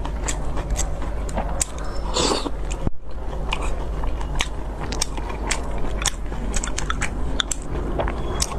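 Close-miked mouth sounds of a person eating: chewing and biting, with many sharp crunchy clicks.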